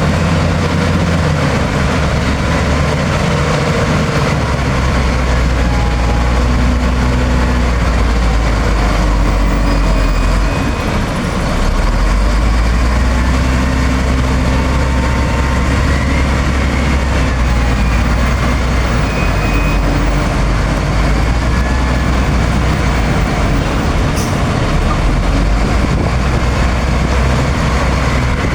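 Wheel loader's diesel engine running, its low note shifting in strength and dipping briefly about eleven seconds in.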